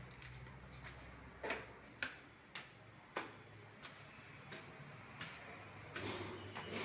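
Faint sharp taps, four of them about half a second apart in the first half, then a few weaker ones, over low background noise.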